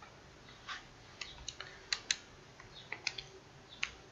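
Faint, irregular light clicks and taps, about a dozen, unevenly spaced.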